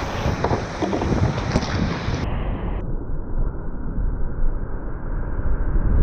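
Whitewater rapids and a waterfall rushing loudly around a kayak, with wind buffeting the microphone. About two to three seconds in the sound abruptly turns duller and muffled, then the rush builds louder towards the end as the boat drops into the spray.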